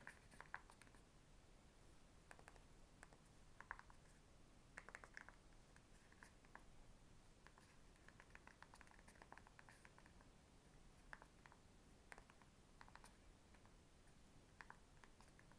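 Faint, irregular clicks of keys being pressed on a CAT S22 Flip phone as a message is typed in T9, some in quick runs, over near-silent room tone.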